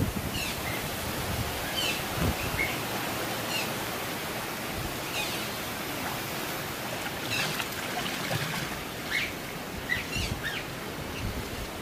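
Repeated short, high chirps that slide downward in pitch, typical of Asian small-clawed otters calling restlessly before feeding, over a steady wash of pool water.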